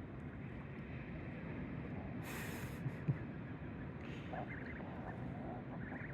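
Steady rush of wind and water at the shore, with a brief hiss a little over two seconds in.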